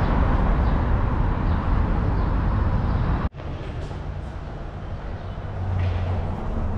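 City street ambience: a steady rush of traffic noise. About three seconds in it cuts abruptly to a quieter street with a low hum.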